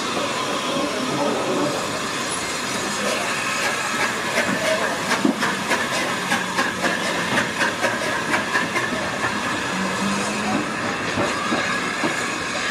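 Narrow-gauge steam train running past, hauled by Welsh Highland Railway Garratt NG.87: the locomotive hisses steam while the carriage wheels click rhythmically over the rail joints, loudest in the middle, with some wheel squeal on the curve.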